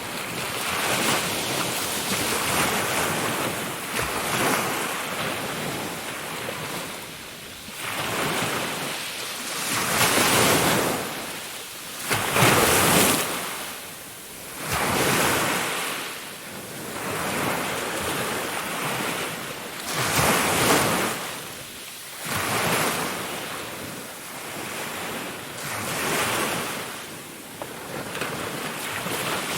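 Ocean waves washing in and out, a steady rushing that swells and ebbs every two to three seconds, with the biggest wave about twelve seconds in.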